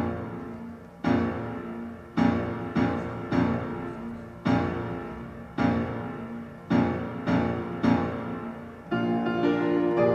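Background piano music: slow chords struck about once a second, each ringing and fading away, growing fuller near the end.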